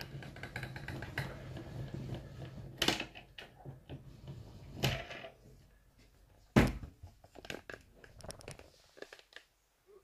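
Handling noise on a desk: scattered clicks, knocks and rustling, with one loud sharp thump about six and a half seconds in, as the tablet and its keyboard cover are moved and set down.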